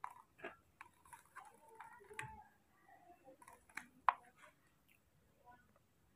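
Light clicks and taps of a plastic cup, spoon and small plastic squeeze bottle being handled, with one sharper click about four seconds in.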